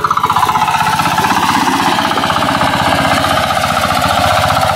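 Two-wheel walking hand tractor's single-cylinder engine running steadily under load while plowing a flooded rice paddy, a fast, even beat of firing strokes.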